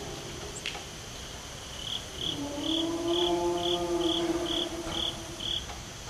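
One long, low howl begins about two seconds in, rising slightly at its start and then held steady for about three seconds. Crickets chirp about twice a second throughout. The recordist takes the howl for a Sasquatch vocalization.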